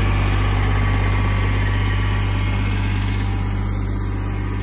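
A vehicle engine idling steadily, a low even hum with no revving.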